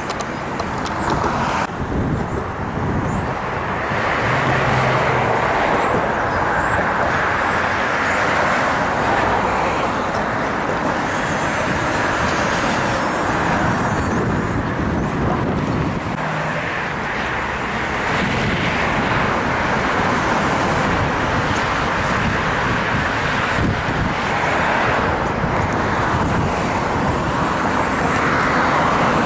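Road traffic on a wide multi-lane street, a steady wash of passing cars, with a TTC streetcar running on the tracks close below around the middle.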